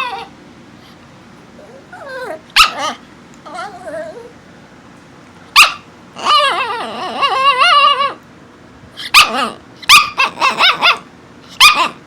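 A dog giving long whining, howling cries that waver up and down in pitch, broken by several sharp barks and a quick run of short yips near the end.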